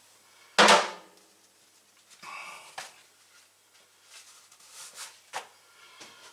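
Workshop handling noises: one loud knock that rings briefly about half a second in, then several lighter knocks and rattles at uneven intervals as parts and tools are handled.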